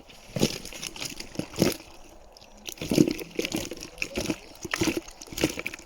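Water sloshing and splashing in irregular bursts, as from hands or fish moving in shallow water, the loudest splash about three seconds in.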